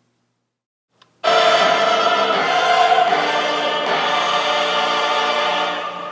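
Choral music begins suddenly about a second in, after a moment of silence, with sustained sung chords.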